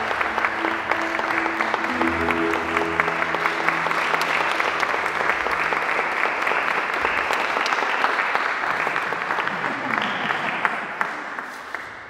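Audience applauding, with a few held low music notes underneath for the first five seconds. The clapping dies away near the end.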